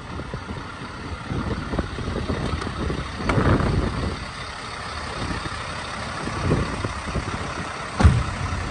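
Scania S 660 V8 truck running at idle, a steady low rumble, with several knocks and thumps; the loudest comes sharply near the end.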